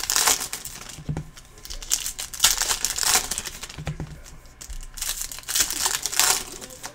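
Foil trading-card pack wrappers being torn open and crinkled by hand, in three bursts of tearing and crackling.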